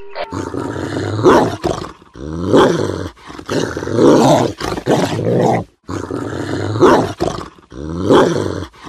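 Pomeranian dog growling in about six rough bouts, each a second or so long, with short gaps between them.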